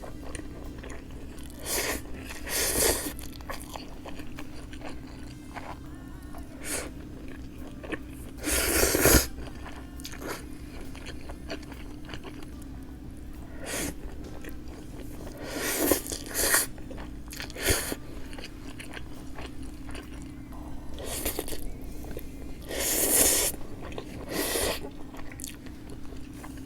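Close-miked eating: irregular bites and chewing of food, coming every second or few, with the loudest bites about a third of the way in and again near the end, over a faint steady hum.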